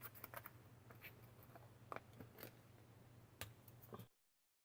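Small spoon scraping and clicking against a small container as used green tea leaves are scooped out, with light handling of a plastic bag: faint, irregular ticks and short scrapes over a low steady hum. It cuts off abruptly about four seconds in.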